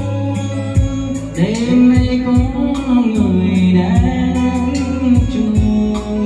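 A man singing into a handheld microphone over backing music with a steady beat and bass line; the voice comes in about a second in.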